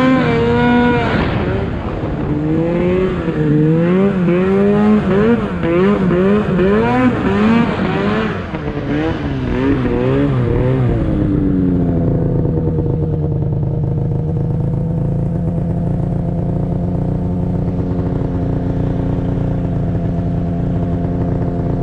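Snowmobile engine revving up and down in quick rises and falls under load on a snowy hill climb, then about eleven seconds in settling to a steady, even pitch.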